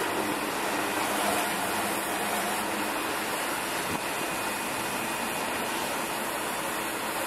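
Steady background noise of construction-site machinery running, with a faint knock about four seconds in.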